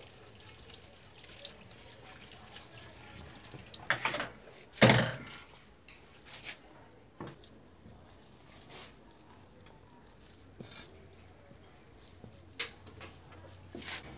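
Crickets chirping steadily, with a tap running over vegetables being rinsed at first. About five seconds in comes a loud knock, and a few lighter knocks follow near the end as a knife starts on the leaves on a chopping board.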